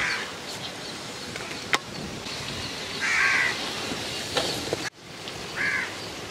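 A crow cawing twice, about three seconds in and again near the end, over a steady background hiss, with one sharp tap a little under two seconds in.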